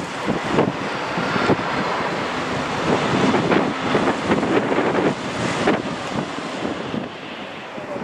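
Strong gusting wind buffeting the microphone over the jet engine noise of a Boeing 757 touching down and rolling out on the runway.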